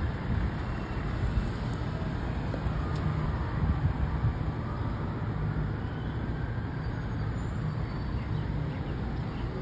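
Road traffic on a city street: a steady low rumble of engines and tyres from passing cars.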